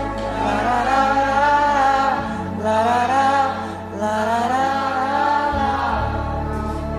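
Slow Christian worship music: a voice sings long, gliding wordless phrases over a held low keyboard pad, whose chord changes twice.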